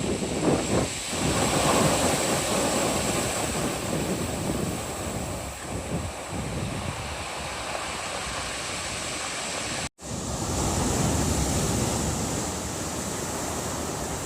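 Ocean waves breaking and washing up a beach, a continuous rush of surf that swells and eases. The sound cuts out for an instant about ten seconds in.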